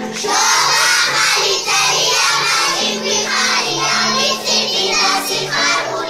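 A group of young children singing together in unison over an instrumental accompaniment with a steady bass line.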